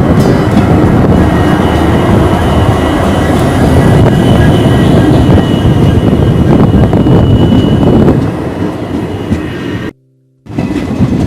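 Passenger train running, heard from on board: a loud steady rumble of wheels on rails with a thin high whine over it for a few seconds. The rumble eases about eight seconds in and cuts out briefly near the end.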